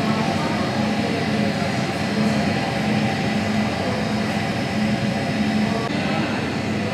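Steady background din of a busy restaurant: a constant low hum and rush with faint voices underneath.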